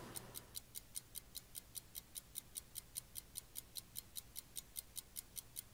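Rapid, perfectly even ticking, about five short, high ticks a second, faint throughout, like a fast clock or click track laid on the soundtrack.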